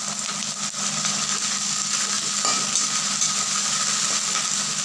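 Freshly added potato sticks sizzling in hot oil in a metal kadhai, stirred with a metal spatula that scrapes the pan.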